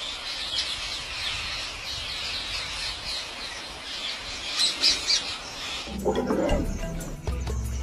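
A large flock of rose-ringed parakeets chattering and squawking over one another, with a few louder shrill squawks about five seconds in. The chatter cuts off abruptly about six seconds in, giving way to a lower sound with clicks.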